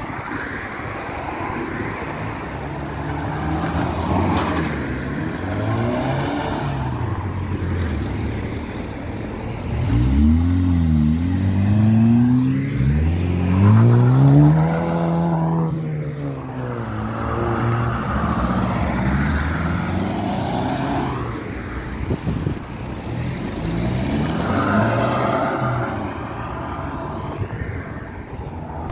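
Several cars accelerating past one after another, their engines revving up and dropping back repeatedly. The loudest and highest-revving pass comes about halfway through.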